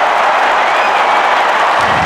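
Large stadium crowd cheering and applauding in a steady, dense wash of noise.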